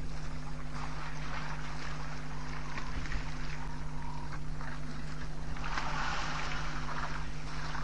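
African elephants wading and drinking in a waterhole: water splashing and sloshing in swells, the biggest about six seconds in, as they shift in the water and dip their trunks. A steady low hum runs underneath.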